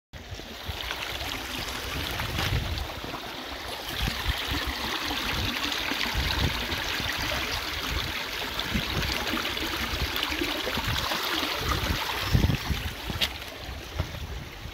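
Glacial meltwater stream rushing over rocks in a steady hiss, with irregular low thumps against the microphone, the loudest about twelve seconds in.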